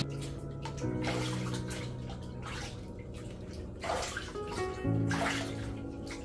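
Water splashing and pouring in short bursts about every second and a half as a dog is bathed in a tub. Soft background music with sustained notes plays underneath.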